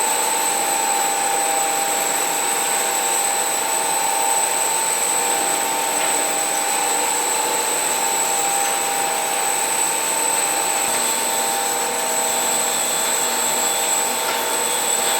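Komman Altay Roller automatic carpet washing machine running, its motors and rotating brushes making a steady mechanical noise with several constant whining tones.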